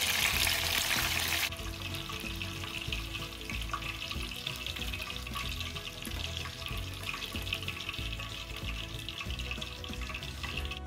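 Flour-battered konnyaku pieces deep-frying in a pan of hot oil. The sizzle is loud and dense for the first second and a half, then settles into a softer, steady crackling sizzle.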